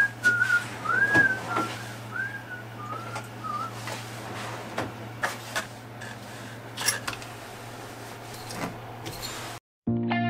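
A person whistling a short, wavering tune for the first few seconds, then scattered clicks and knocks as a cabinet door and a plastic drill-bit case are handled, over a steady low hum.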